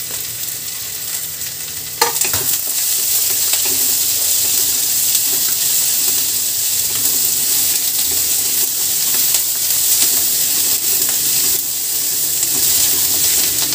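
Chopped onion, capsicum and spring onion sizzling in oil in an iron kadhai, stirred and tossed with a wooden spatula. The frying gets louder with a sharp click about two seconds in, when the stirring starts, and the scraping and sizzling carry on after that.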